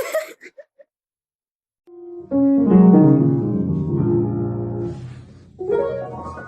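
Piano music: a few chords struck about two seconds in, ringing and slowly fading, with another chord struck near the end. A brief noisy burst comes just at the start, before a second of silence.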